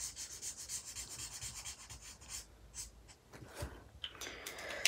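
Felt tip of a Promarker alcohol marker rubbing on paper in quick back-and-forth colouring strokes, several a second. The strokes ease off after about two and a half seconds. The marker is being worked over still-wet black ink to blend it into a red gradient.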